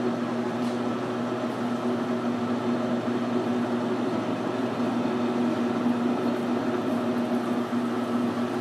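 12x36 Precision Matthews metal lathe running steadily: spindle turning and power feed engaged as the parting blade feeds toward the cut, a constant machine hum.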